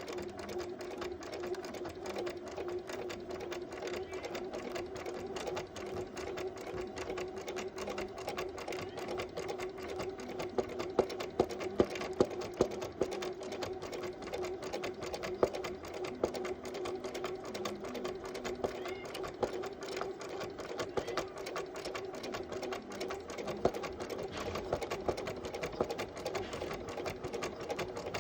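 Bernina Artista 180 sewing machine running steadily for free-motion quilting: a rapid, even ticking of needle strokes over a steady motor hum. A few louder clicks come a little before the middle.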